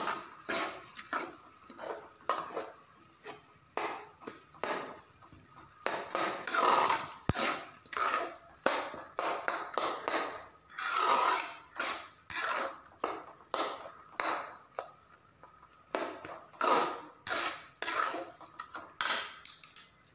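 Metal ladle scraping and stirring goat blood, onions and green chillies in a metal kadai, in irregular strokes about one or two a second, over a steady frying sizzle. The blood is being stirred continuously until it cooks through into crumbles like scrambled egg.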